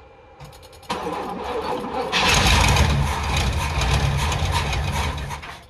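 Box Chevy's engine being cranked by the starter, catching about two seconds in and running briefly on a little gas poured in, then cutting off near the end. It is a first start after sitting unused a long time.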